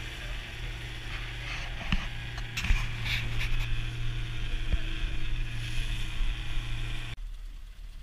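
Outboard motor running steadily at speed on a small aluminium boat, with the rush of water and wind and a few sharp thumps; the engine sound stops abruptly near the end.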